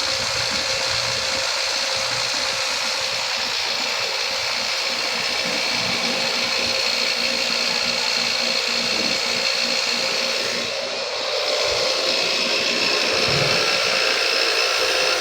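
Grinder's wire wheel running steadily, brushing a fresh MIG weld clean, with a steady whine over the scrubbing noise. The sound dips briefly near the end.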